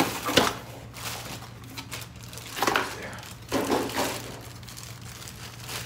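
Plastic packaging crinkling and rustling as a new compact circular saw is unpacked and handled, with two sharp clicks at the very start and a few louder rustles about three to four seconds in.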